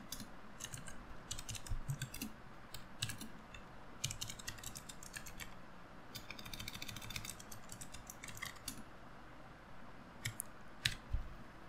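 Typing on a computer keyboard: short runs of quick keystrokes with pauses between them.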